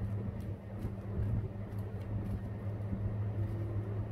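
Scissors snipping paper in small, irregular cuts, faint over a steady low hum.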